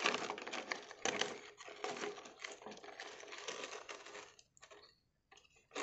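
Plastic toy dump truck and trailer parts being handled and fitted together: a run of light plastic clicks, knocks and scrapes, falling quiet about four and a half seconds in.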